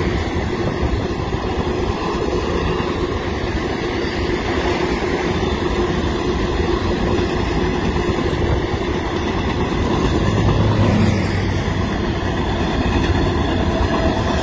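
Union Pacific freight train of coal hopper cars rolling past at speed, a steady, loud sound of steel wheels on rail.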